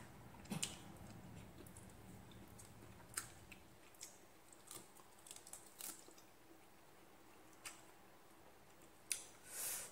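Faint scattered wet clicks and squishes of pomelo segments being peeled by hand and chewed, over quiet room tone, with a short louder breathy rustle near the end.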